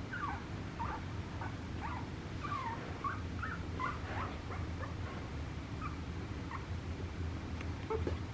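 Papillon puppy whimpering in short high squeaks, a quick run of them in the first few seconds and then fewer, over a steady low hum.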